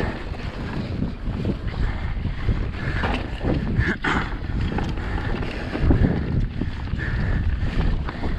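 Wind buffeting the microphone of a handlebar-mounted action camera, over the rumble and rattle of a mountain bike descending a dirt trail at speed.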